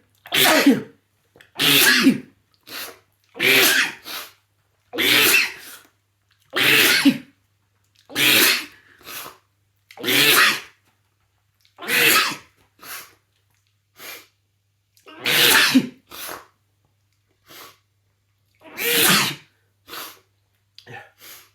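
A man's sneezing fit, brought on by sniffed Chhinkni sneezing powder: about ten loud sneezes a second or two apart, with shorter, quieter ones between them.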